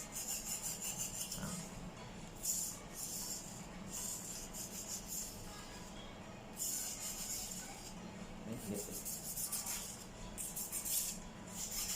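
Metal nail file rasping along a carbon-steel knife blade, in separate sharpening strokes of up to a second and a half, with short pauses between.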